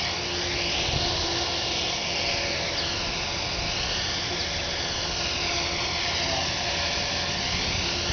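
Align T-Rex RC helicopter hovering low, its rotor and motor giving a steady whine whose upper tones sweep slowly up and down as it drifts in the gusts.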